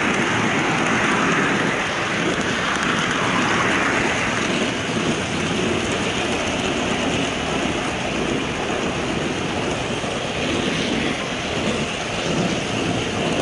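HO scale model train with a camera car running along the track, heard close up from the camera riding on it: a steady noisy rattle of wheels on rails and the train's drive.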